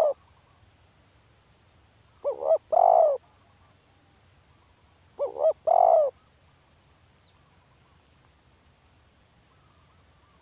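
Spotted dove cooing: two short coos followed by a longer coo, the phrase given twice about three seconds apart, with the end of an earlier phrase at the very start.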